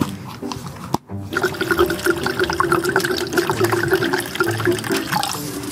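Water pouring into a container as a steady stream, starting about a second in.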